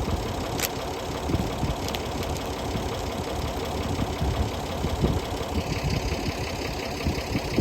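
Tractor engine running steadily, with a sharp click about half a second in.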